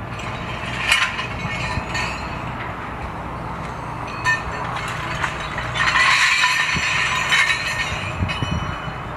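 Scrap steel clanking and rattling as an excavator's lifting magnet handles it: a clank about a second in, another near four seconds, then a denser metal clatter from about six seconds in. Under it runs the steady hum of the John Deere 245G LC's diesel engine.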